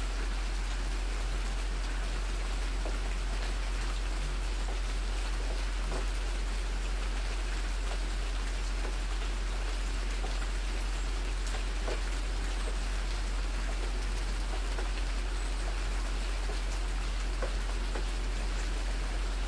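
Steady, even hiss like light rain, with a few faint scattered ticks and a constant low electrical hum underneath.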